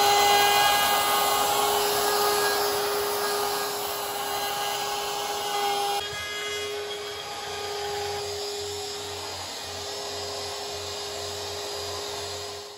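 DeWalt compact router with a 1/8-inch round-over bit running and cutting the edge of a wooden butcher block top, a steady machine whine over the noise of the bit chewing wood. About six seconds in the sound drops abruptly and the router carries on more quietly.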